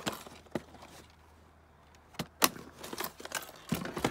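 Hard plastic storage bins in a small fibreglass hatch being handled: a series of sharp clicks and knocks with small rattles, the loudest about two and a half seconds in, after a short pause.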